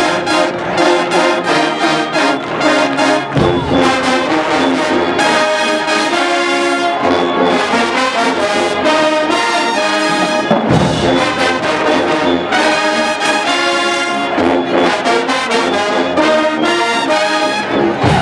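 Large marching band playing a loud, brass-heavy tune, with trumpets and trombones carrying the melody over a steady beat.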